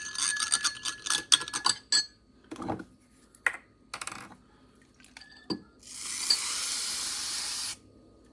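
Glass cold brew jar and its stainless steel filter and lid being handled: a quick run of rattling clinks, then a few scattered knocks, then a steady hiss lasting about two seconds.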